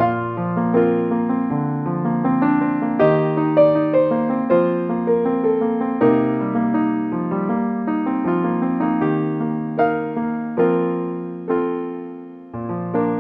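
Background music: a calm solo piano piece, a slow melody of single notes over sustained chords, ending on a final chord that rings and fades near the end.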